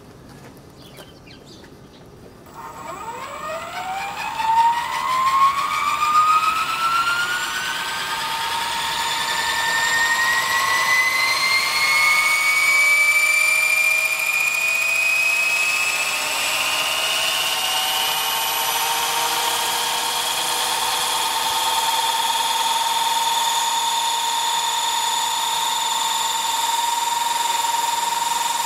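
Electric Align T-Rex 550 RC helicopter, fitted with a 600 boom, spooling up on its pad. About two seconds in, the motor and rotor whine starts low and rises steadily in pitch for about ten seconds. It then holds at a steady high whine.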